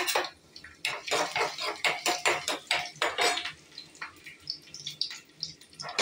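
A metal spoon clinking and scraping against a metal kadai, stirring chopped garlic in a little oil, in quick irregular strokes; a few strokes ring briefly.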